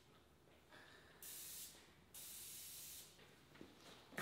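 Aerosol spray can hissing in two bursts, a short one and then a longer one of about a second.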